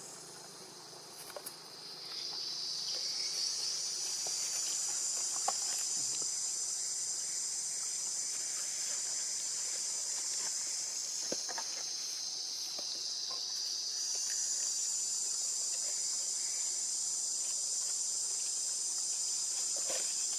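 A steady, shrill, high-pitched insect chorus that swells up about two seconds in and eases a little in the middle, with a few faint clicks and rustles.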